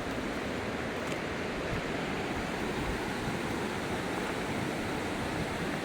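Steady rushing noise of flowing water, even and unbroken throughout.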